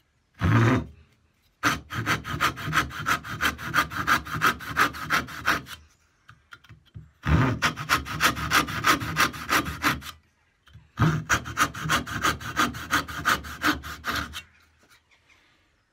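Vintage Thomas Sorby brass-backed dovetail saw, freshly sharpened and its blade oiled, sawing into a wooden block. A short thump about half a second in is followed by three runs of quick, even back-and-forth strokes, with short pauses between them.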